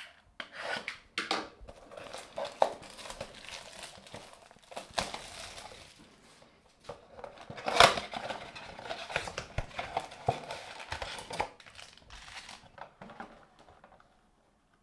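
Plastic shrink-wrap on a cardboard trading-card blaster box crinkling as it is slit and peeled off, then the box's cardboard flaps pulled open and the foil packs inside handled. Irregular rustling and crackling throughout, with a sharp crack about eight seconds in.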